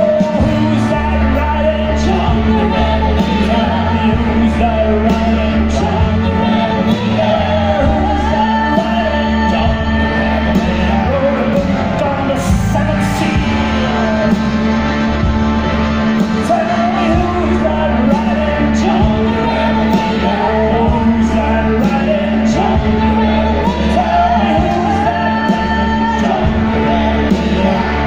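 Blues band playing live, with singing and harmonica over acoustic guitar, keyboard, bass and drums.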